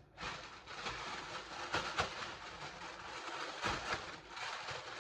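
Rustling and handling noises with a few sharp clicks, about two seconds in and again near four seconds.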